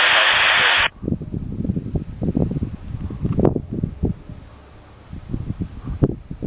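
A handheld airband radio's squelch hiss, loud, cuts off abruptly about a second in, leaving an irregular low rumble buffeting the microphone. Over it runs a steady high-pitched insect chirring.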